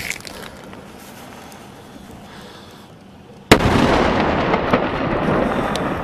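A single loud explosion close by, about three and a half seconds in, followed by a long rolling rumble that slowly fades. Before it, only a few faint distant pops of gunfire.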